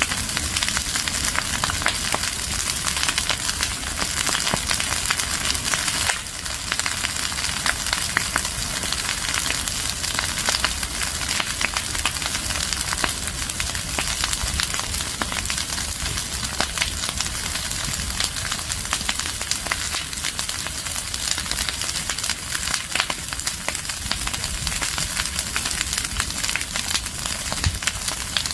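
Fire of leaves and branches burning, crackling steadily with a dense stream of small pops over a constant hiss.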